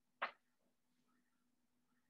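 Near silence with a faint steady hum, broken by one short, sharp click about a quarter of a second in.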